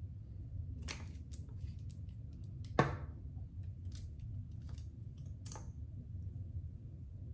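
Light clicks and taps of makeup items being handled, with one sharper click about three seconds in, over a steady low room hum.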